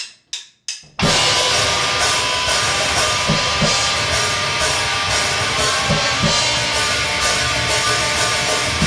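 A few short clicks, then a loud rock song with a full drum kit starts suddenly about a second in, dense and steady, with a heavy, metal-leaning sound.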